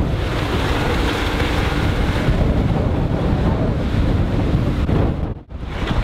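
Heavy wind buffeting on the microphone over a Bayliner 245 sports cruiser running at speed on its MerCruiser 5.0-litre V8 sterndrive, heard as a faint steady engine hum under the rush of water. The sound drops out briefly about five seconds in.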